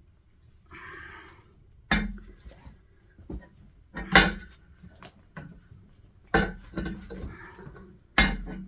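Hammer blows on metal: four heavy clanging strikes about two seconds apart, with lighter knocks between, as brute force is used to free a seized threaded part.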